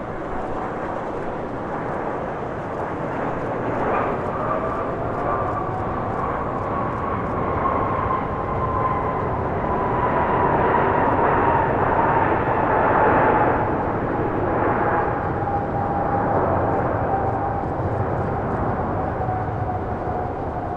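Airbus A350-900's Rolls-Royce Trent XWB turbofans passing, a broad jet rumble with an engine whine that slowly falls in pitch as the aircraft goes by. The sound builds to its loudest about two-thirds of the way through, then eases off a little.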